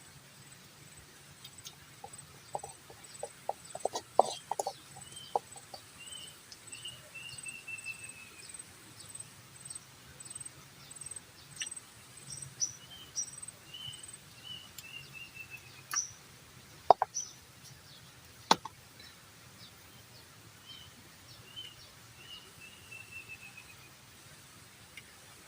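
Forest ambience: a bird sings a short run of notes stepping down in pitch, three times over, while a very high pulsing pip repeats about twice a second for the first ten seconds. Scattered short clicks and knocks, bunched a few seconds in, with two sharp clicks later.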